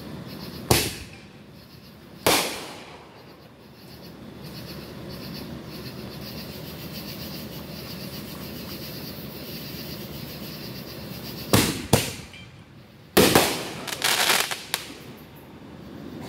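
Fireworks going off: two sharp bangs about a second and a half apart near the start, each fading quickly. Near the end comes a quick pair of bangs, then another, then a rapid cluster of cracks.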